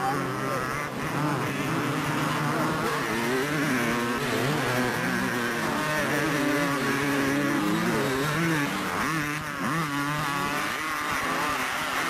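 Several 250cc two-stroke motocross bikes racing together, their engines revving up and down as the riders work the throttle, with pitches overlapping and shifting.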